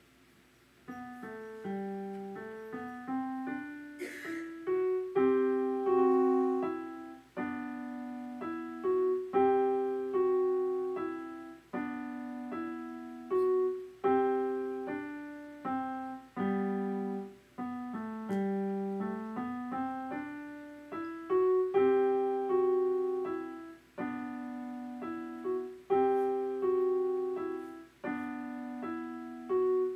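Electronic keyboard played in a piano voice: a solo piece of melody over chords, each note struck and fading away. It starts about a second in.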